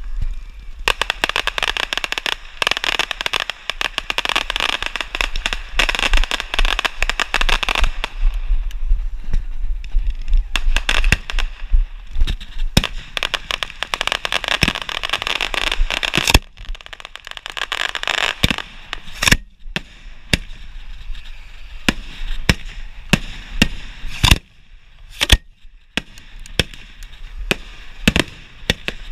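Fireworks firing at close range: a dense, rapid run of cracks and pops for most of the first twenty seconds, breaking briefly at about sixteen seconds. After that come separate sharp bangs about a second or so apart.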